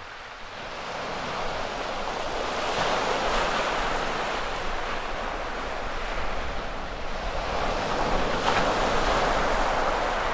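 Sea surf breaking and washing over a shingle beach, swelling twice.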